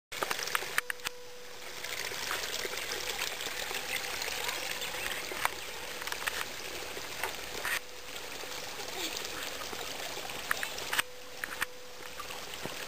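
Steady rushing hiss like running water, broken by sharp clicks and knocks about a second in and again around eleven seconds in.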